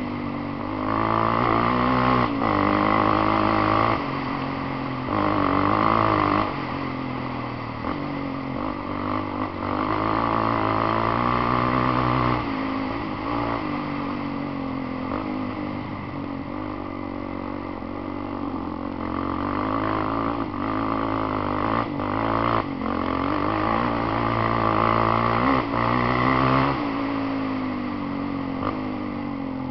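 Polaris Outlaw quad bike's engine under way on a rough dirt track, its pitch rising and falling with the throttle and opening up loudest in several spells of a second or two. Scattered knocks come from the bumps and stones of the track.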